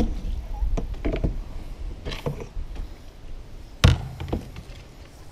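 Paddle knocking and tapping against a canoe's hull while paddling: a loud hollow knock at the start and another about four seconds in, with lighter taps between.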